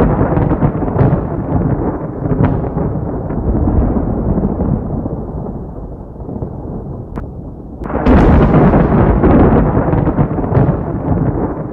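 Battle sound effects: a continuous rumble of explosions with scattered sharp cracks, easing off in the middle and surging again about eight seconds in.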